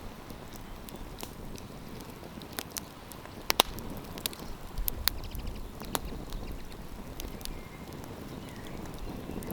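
Wood campfire crackling, with sharp pops scattered irregularly through it, the loudest two close together about three and a half seconds in, over a steady low rushing hiss.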